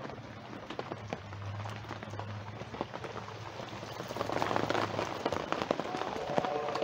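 Rain falling as a patter of individual drops, growing heavier and louder about four seconds in.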